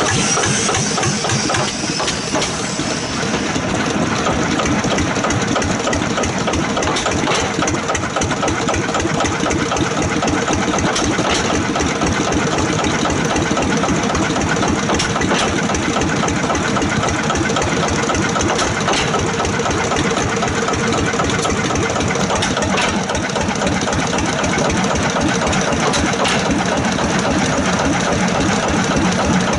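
Yanmar LEL-type vertical diesel stationary engine running steadily with a rapid, even firing beat.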